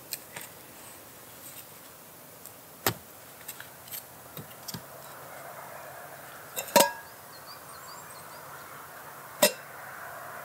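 Wooden sticks knocking and clattering as a bushcraft pot hanger is set up. There are a few light clicks, then three sharp knocks: about three seconds in, the loudest near seven seconds with a brief ring, and one more near the end.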